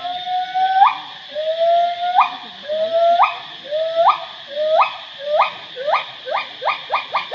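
Pileated gibbon's great call: a series of whoops, each a drawn-out note that sweeps sharply upward at its end. The notes get shorter and quicker, reaching about two a second near the end. A steady high hiss runs underneath.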